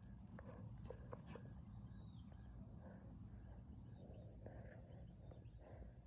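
Faint frog calls at night: short croaks and clicks repeating irregularly, over a steady high-pitched tone.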